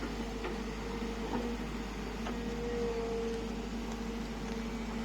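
SANY SY55C mini excavator's diesel engine running at a steady hum, with a few faint clicks.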